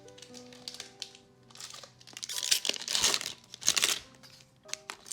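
Foil Magic: The Gathering booster pack wrapper crinkling and being torn open, in several loud bursts from about a second and a half in, over quiet background music.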